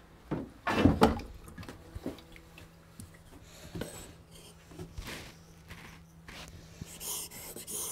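A few scattered knocks and clunks as the water stones and hand plane blade are handled on a wooden bench, the loudest about a second in. Near the end a hissing scrape begins: a plane blade being rubbed on a Japanese water stone.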